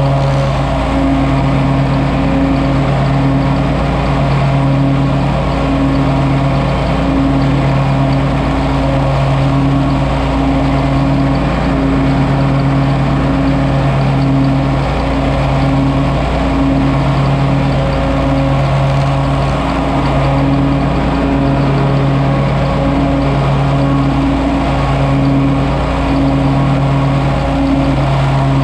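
John Deere 648R stand-on commercial mower running steadily with its cutting deck engaged.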